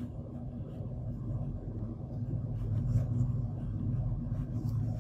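Steady low background rumble with a constant low hum, swelling slightly about halfway through, and a few faint clicks.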